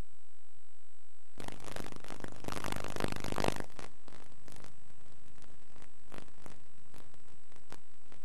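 VHS tape audio noise on a blank leader: steady hiss with a faint high whine. About a second and a half in, a burst of louder crackling static lasts about two seconds, then the hiss carries on with scattered clicks and crackles.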